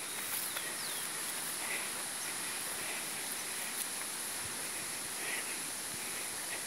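Countryside ambience: a steady high insect drone with a few short bird calls scattered through it.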